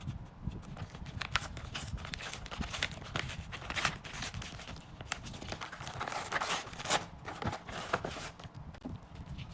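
Hands handling photocards and their packaging: irregular light clicks, taps and short rustles.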